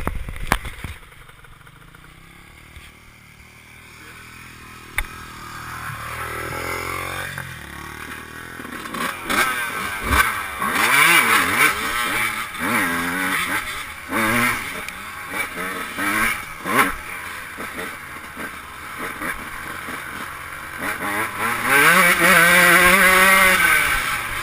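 Yamaha YZ125 single-cylinder two-stroke motorcycle engine idling quietly, then revved in a series of quick blips from about nine seconds in. Near the end it is held at high revs for a couple of seconds before dropping back.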